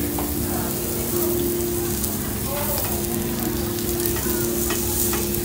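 Beef steak sizzling on a tabletop Korean barbecue grill: a steady frying hiss with a low hum underneath. A few light clicks come as metal tongs turn the meat.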